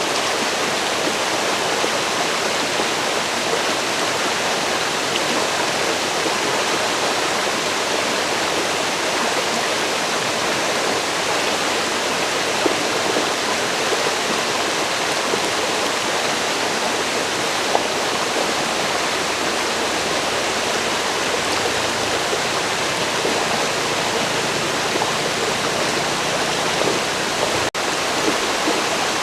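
A forest river flowing, a steady even rush of water with no change in level. There is a momentary drop-out near the end, like a splice in the recording.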